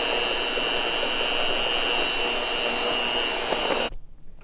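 Electric hand mixer running steadily with a constant high whine, its beaters whisking eggs, sugar and cornstarch in a stainless steel bowl. It cuts off abruptly near the end.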